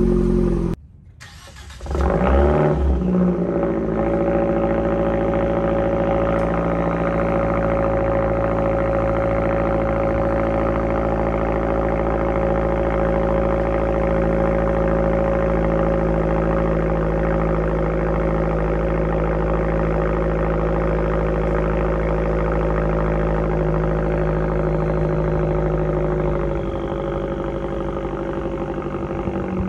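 A Fiat 124 Abarth's 1.4-litre turbo four-cylinder starts through a 2.5-inch GWR crosspipe and straight-through System One exhaust. It revs up briefly about two seconds in, then settles into a steady fast idle typical of a cold start. Near the end the idle drops a step lower.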